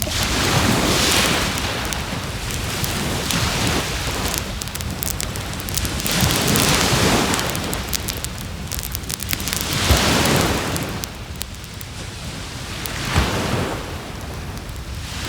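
Waves breaking on the shore, swelling and fading every three seconds or so, over the steady crackle of a burning wood bonfire, with a couple of sharper pops from the fire.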